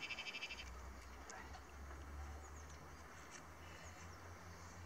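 Quiet outdoor ambience with faint high bird chirps, scattered a few times; a fast, even, repeating trill stops less than a second in.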